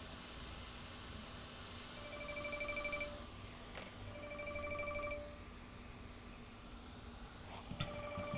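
Telephone ringing in bursts of about a second, three times, over a faint steady hiss.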